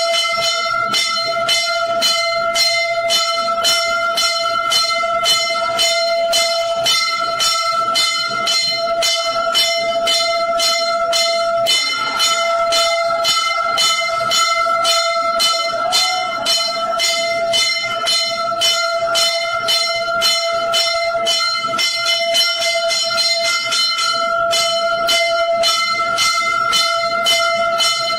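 Temple bells rung continuously for the aarti: a steady, even ringing kept up by rapid regular strikes, about three a second.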